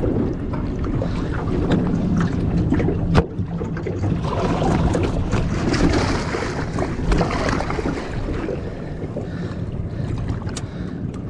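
Wind buffeting the microphone and water washing against a small boat's hull, with a sharp knock about three seconds in and a louder rush of water between about four and eight seconds.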